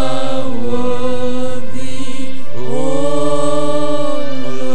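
A man singing a slow praise chorus into a microphone, drawing out long held notes and sliding in pitch from one to the next.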